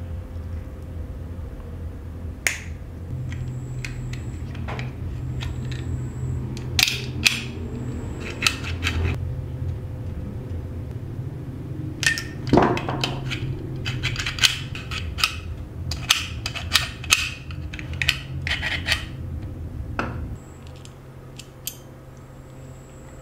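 Small steel lock parts being handled and fitted by hand with pliers: scattered sharp metal clicks and taps, busiest about two-thirds of the way through, over a steady low hum that drops away near the end.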